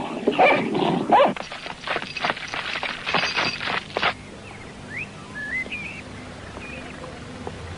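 A pack of hunting dogs barking rapidly, set loose on a chase; the barking stops suddenly about four seconds in, leaving a few short bird chirps.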